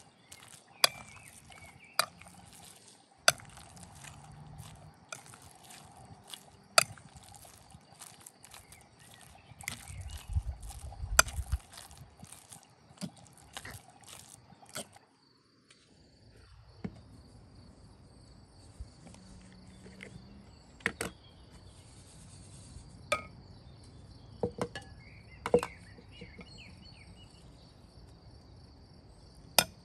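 Scattered sharp clicks and knocks, about a dozen at uneven intervals, as of utensils and cookware being handled, over a steady hum that stops about halfway through; from then on a steady high tone runs underneath.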